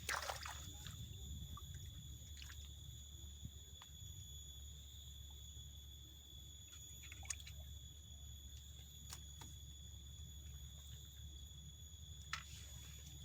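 Faint outdoor ambience: a steady high insect trill over a low rumble, with a few small scattered clicks and taps.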